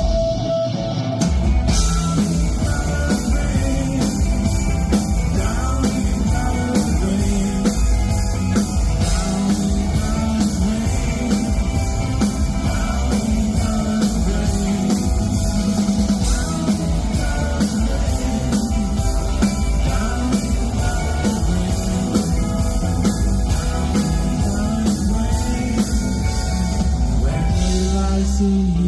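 Live rock band playing with electric guitars, bass guitar and a drum kit keeping a steady beat on the cymbals, with singing.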